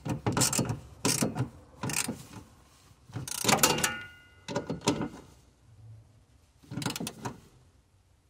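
Ratchet wrench worked in short strokes, tightening a bolt on a throttle pedal bracket: a series of brief ratcheting clicks about one every half second to a second, with a short pause about six seconds in.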